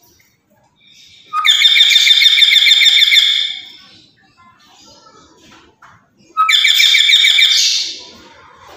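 Black-capped lory giving two loud, harsh calls, each about two seconds long and made of rapid repeated notes, the second starting about five seconds after the first.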